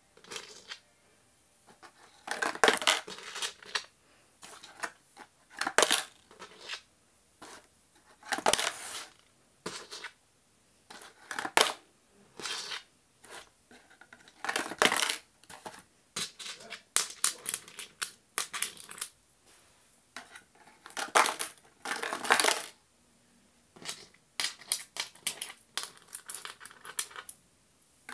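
Coins dropped one at a time into a homemade cardboard coin-sorting machine, each clattering and rattling down its cardboard chutes for about a second, with a new coin every one to three seconds.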